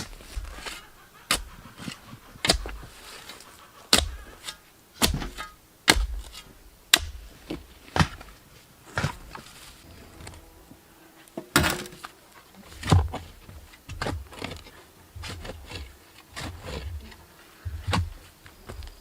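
A run of sharp knocks and thuds, about one a second and irregular, some with a crunching edge.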